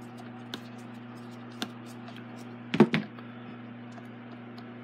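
A few light metal clicks of a screwdriver and fan parts being handled, then a short clatter of several knocks about three seconds in, over a steady low electrical hum.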